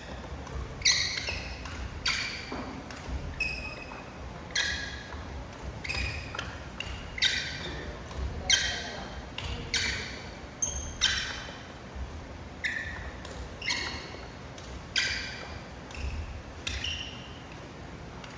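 Badminton rackets striking shuttlecocks in a knock drill: sharp pinging hits with a short ring, coming irregularly about once a second.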